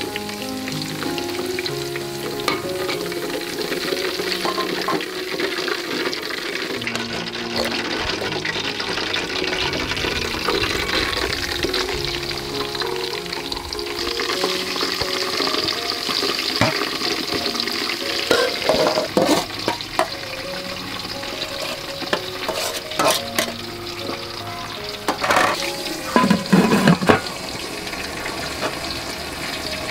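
Lime leaves frying in hot cooking oil with a steady sizzle while metal tongs stir them, and a run of sharp knocks and clatters in the second half.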